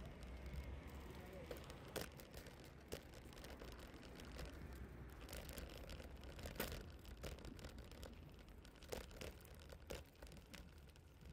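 Low rumble of wind and rolling over pavement on a moving camera's microphone. Scattered sharp clicks and rattles run through it, with the strongest about two, three and six and a half seconds in and a cluster near ten seconds.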